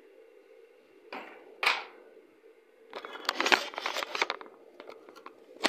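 Handling noise from the recording phone as it is picked up: a brushing swish, then a rapid run of clicks and rubbing from fingers over the microphone, and a few knocks near the end, over a steady low hum.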